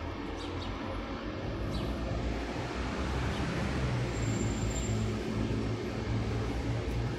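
City street traffic: the steady hum of road traffic, with a vehicle's engine growing louder from about two seconds in and staying loud.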